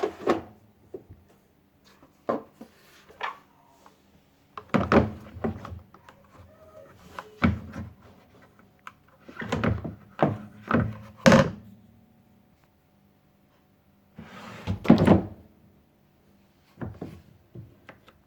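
Irregular knocks and thuds from the dryer's metal cabinet and parts being handled and fitted back together, coming in clusters with short pauses between.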